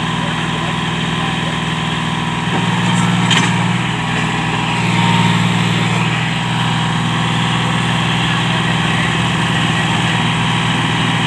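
Diesel farm-machinery engine running steadily at a low, even speed, swelling briefly twice in the first half, with a sharp click about three seconds in.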